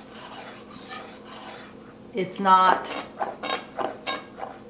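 Chef's knife rocking back and forth on a wooden cutting board, scraping at first, then tapping the board in a quick run of short knocks in the second half. A brief spoken sound comes about halfway.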